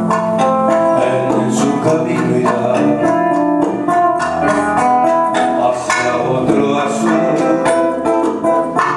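Small live band playing: an acoustic guitar picked in quick, busy notes over keyboard accompaniment, with a steady rhythm.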